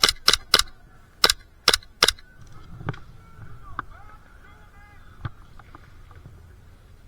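Airsoft guns firing single shots: six sharp cracks in about two seconds, then a few fainter, scattered cracks.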